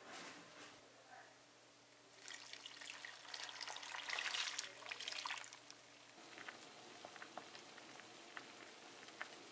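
Broth poured from a saucepan into a shallow pot packed with cabbage, tofu and sliced chicken, splashing and trickling for a few seconds. It is loudest midway, then settles into faint small ticks and pops.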